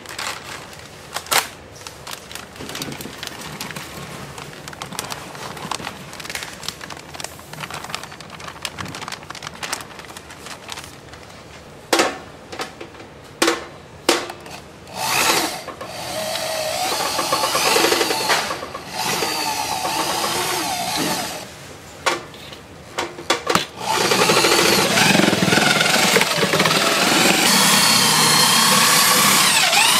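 Batter powder poured from a sack into a stainless steel pot, with rustling and knocks. Then an electric paddle mixer on a long shaft starts in short runs, and about 24 seconds in it runs steadily and loud, whisking the powder and water into batter.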